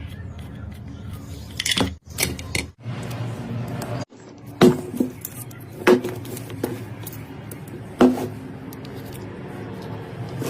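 Background music, with three sharp knocks that each ring briefly, spread a second or two apart in the second half.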